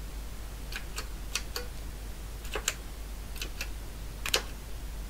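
Keys on the keypad of an Elektronika D3 nixie tube calculator being pressed one after another: a series of short, sharp clicks at irregular spacing, several in close pairs.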